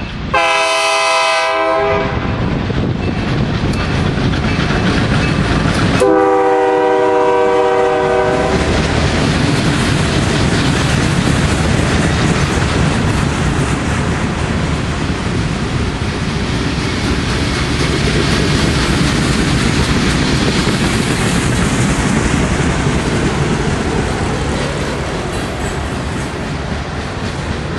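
Freight train locomotive horn sounding two blasts, the second longer and lower in pitch, then a string of refrigerated boxcars rolling past with a steady rumble and clatter of wheels on rail.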